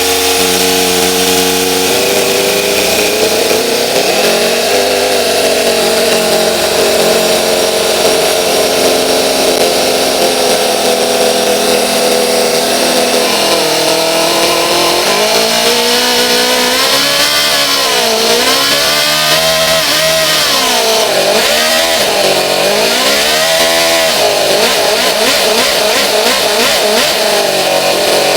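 Four-cylinder V4 nitro model engine running, steady at first, then revved up and down several times from about halfway through.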